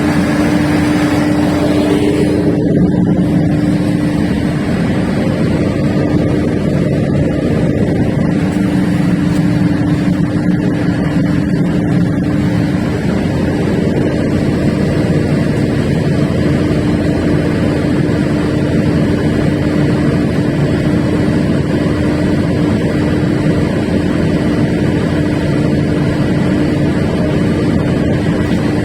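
1400 kVA Perkins diesel generator set running steadily: a loud, even engine drone with a constant hum tone through it.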